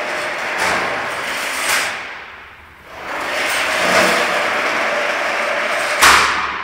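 Retractable steel trellis security gate sliding along its track, a steady noisy rolling and scraping of the folding steel leaves, in two runs with a short lull between. About six seconds in the gate is pushed shut against its end and gives a single loud metal clang.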